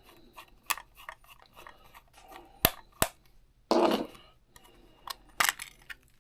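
Light plastic clicks and taps from a cheap toy-grade RC transmitter being opened at its battery compartment. Two sharp clicks come near the middle, and a short scraping rattle follows just under four seconds in.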